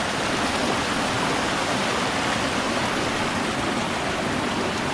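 Rushing water of a fast-flowing mountain stream running high over rocks, a steady unbroken rush.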